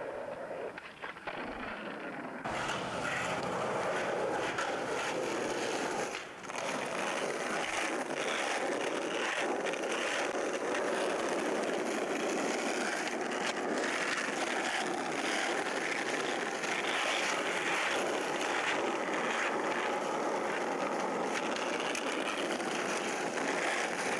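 Skateboard wheels rolling on rough asphalt, a steady grinding rumble with scattered clicks and knocks from the board. The sound changes abruptly about two seconds in and dips briefly about six seconds in.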